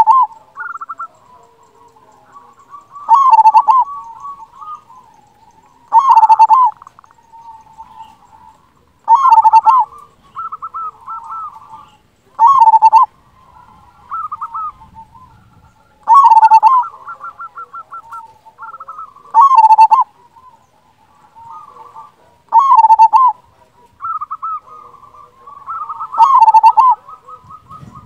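Zebra dove (perkutut) singing its cooing song over and over, a phrase about every three seconds: each phrase is a quick run of short notes ending in a loud coo.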